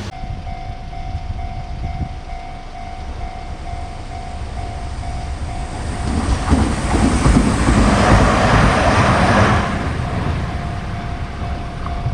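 Japanese level-crossing alarm bell ringing its steady repeated 'kan-kan' warning. A Hiroden tram runs through the crossing from about six seconds in, its wheels rumbling and clattering on the rails. The pass is loudest around eight to nine seconds and drowns out the bell, which is heard again after the tram has gone.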